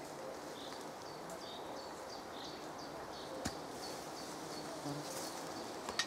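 Flies buzzing in the open air while a small bird repeats short high notes, about two or three a second. One sharp click about three and a half seconds in.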